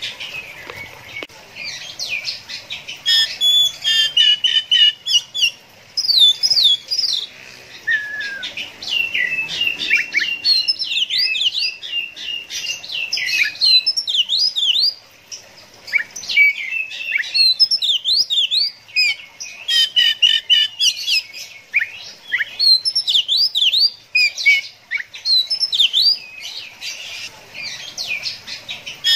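Oriental magpie-robin (kacer) singing a long, varied song of clear whistles, quick slurred notes and rapid trills, delivered in phrases with brief pauses between them.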